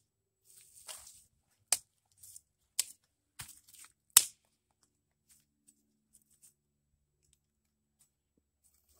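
Small dead sticks of kindling snapped by hand, four sharp cracks within about three seconds, the loudest about four seconds in, with dry leaves rustling under the hands. Near the end only a few faint ticks.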